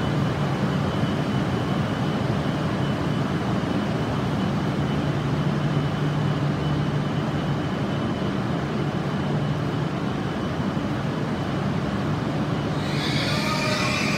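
E6 series Shinkansen standing at the platform with its onboard equipment running: a steady low hum under a constant noise, with a faint thin high whine.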